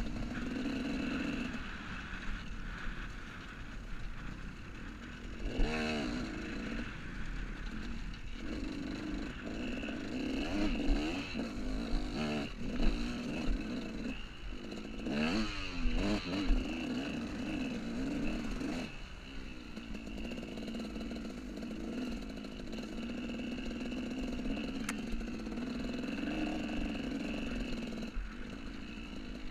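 A 2001 KTM 200 EXC's single-cylinder two-stroke engine revving up and down as the enduro bike is ridden along a rough trail, the pitch rising and falling with each burst of throttle. Occasional sharp knocks break through the engine sound.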